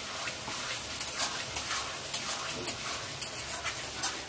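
Metal ladle stirring and scraping sauce-coated vegetables in a steel kadai over a gas flame, with a steady sizzle and scrapes and clinks about every half second.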